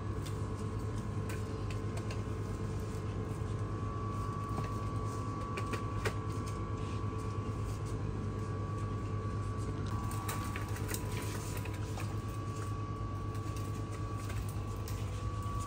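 Steady machine hum of a shop's refrigerated display coolers, with a faint steady high tone over it and scattered light clicks and knocks.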